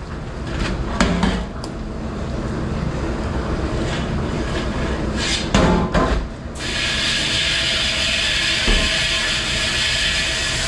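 Metal pans and dishware clattering and knocking in a commercial dish pit. About six and a half seconds in, a steady hiss of spraying water starts suddenly and keeps going.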